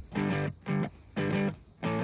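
Background music: distorted electric guitar playing short, chopped chords, four stabs with brief gaps between them.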